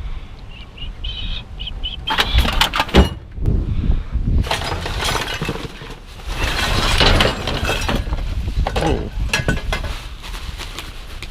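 Junk clattering and rattling in several bursts as items are shifted and pulled out of a dumpster, over a low rumble of wind on the microphone.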